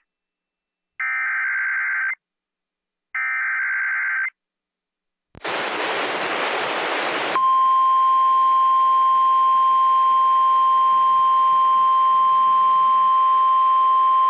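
Emergency Alert System signal: two SAME header data bursts about a second long each, separated by short silences, then a click and about two seconds of static. The steady single-pitch 1050 Hz NOAA Weather Radio alert tone follows over faint hiss, held to the end.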